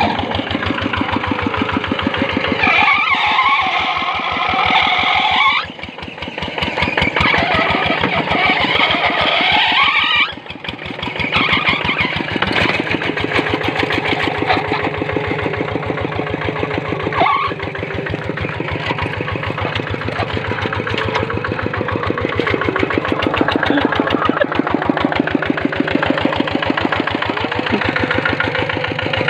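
Small engine-driven machine running steadily with a fast, even firing beat. Its sound drops briefly twice, about six and ten seconds in, then picks back up, as if under changing load.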